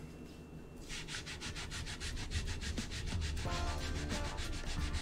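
A wooden cutting board being scrubbed hard to clear off something stuck to it, in quick, even back-and-forth strokes, several a second, that start about a second in.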